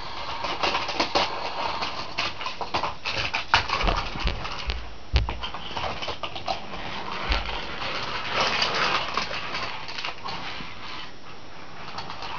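Die-cast Take Along Thomas toy engine pushed by hand along plastic track, rattling and clicking unevenly, with sharper knocks about three and a half and five seconds in.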